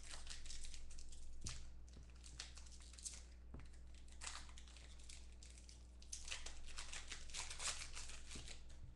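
Foil trading-card pack wrapper being opened and crumpled by hand: crinkling, tearing rustles, busiest in the first second or so and again from about six seconds in.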